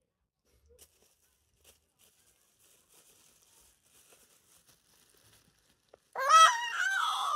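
A five-month-old baby's loud, high-pitched squeal, wavering up and down in pitch, breaking out about six seconds in after a few seconds of faint rustling. The parent says such sounds are the baby playing with his voice, not crying.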